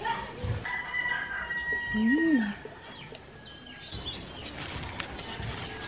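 A rooster crowing: one long held call from about half a second in to about two and a half seconds. A short low sound that rises and falls in pitch comes about two seconds in and is the loudest moment.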